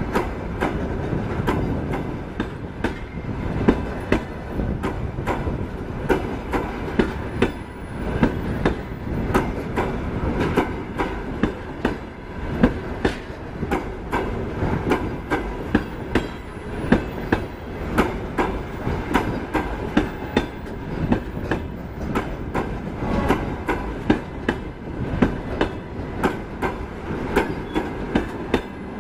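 Double-decker passenger coaches rolling past, their wheels clicking over the rail joints in a steady repeating rhythm over a low rumble.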